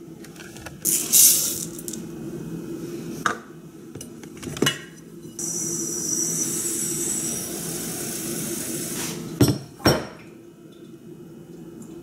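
Kitchen clatter: dishes, glass and utensils clinking and knocking on the counter, with a few seconds of steady hiss in the middle and two sharp knocks close together near the end.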